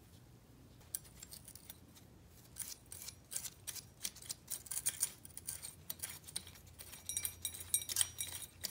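Light metallic clicks and clinks of a hand wrench working a bolt on a motorcycle engine, in quick irregular runs that grow denser near the end.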